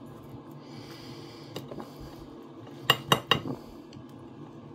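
A knife clinking against a plate while roast chicken skin is picked off: one small click, then three sharp clinks in quick succession about three seconds in, over a faint steady hum.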